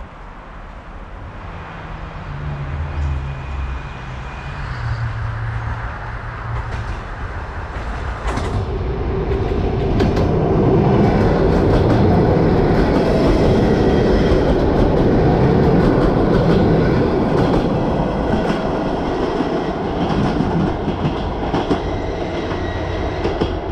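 ЭП3Д electric multiple unit passing close along the platform at speed, its wheels clattering on the rails. Loud from about eight seconds in, easing near the end as it draws away.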